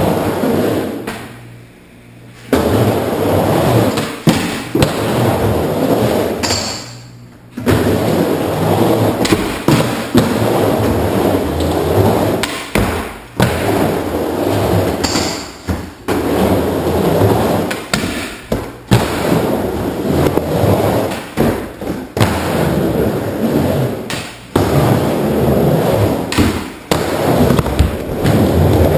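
Skateboard rolling back and forth on a wooden mini ramp, its wheels making a steady rumble broken by many sharp knocks and thuds from the board striking the ramp. The rolling drops away briefly twice, near the start and again a quarter of the way in.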